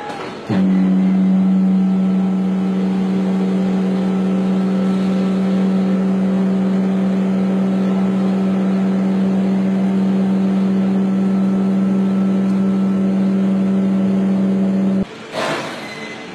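Steady, loud machine hum from foundry sand-handling machinery. It holds one pitch until it cuts off abruptly near the end, followed by a brief rushing burst of noise.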